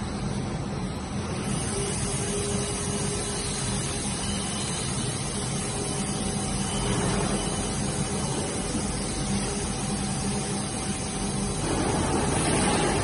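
ABA film blowing machine running: a steady dense machine din with a few constant humming tones, swelling a little near the end.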